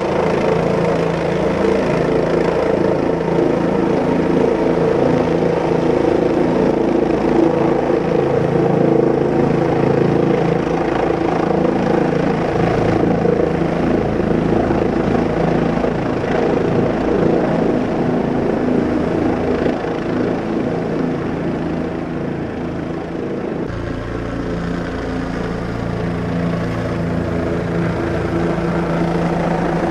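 Helicopter in flight: steady rotor and engine noise, changing slightly in tone about two-thirds of the way through.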